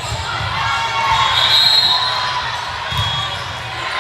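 Indoor volleyball game: low thumps of the ball and players on the court mixed with high squeaks of sneakers on the gym floor, over a background of spectators' voices.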